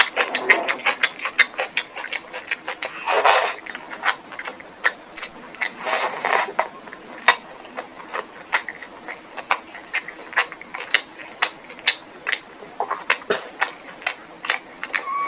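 A person chewing food close to the microphone: a rapid, irregular run of sharp crunching clicks, several a second, with two longer, louder crunches about 3 and 6 seconds in.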